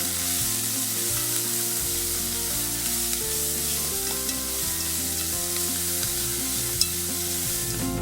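Spicy mushroom filling sizzling steadily in a hot frying pan, with one sharp tick about seven seconds in. Soft background music plays underneath.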